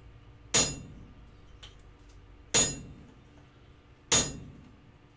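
Hand hammer striking a slit chisel held on a hot steel bar on the anvil. There are three sharp metallic strikes about one and a half to two seconds apart, each ringing briefly. The chisel is going across the marks to cut the layout lines into the hot bar.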